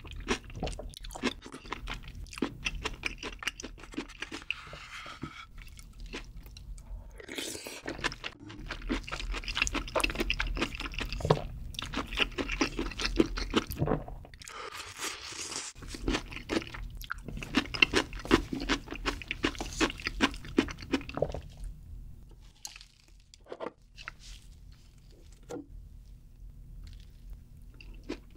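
Close-miked chewing of chewy rice cakes (tteokbokki) in creamy sauce: many quick, wet, sticky mouth clicks in long runs, broken by a couple of short slurps of sauce from a spoon. The chewing thins out to a few separate clicks near the end.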